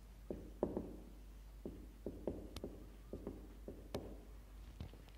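Marker pen writing on a whiteboard: about a dozen short, irregular taps and strokes as the letters go down.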